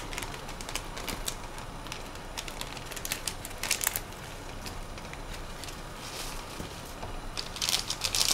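Plastic food packets being handled and torn open: scattered small clicks and brief crinkles, with a louder burst of crinkling near the end.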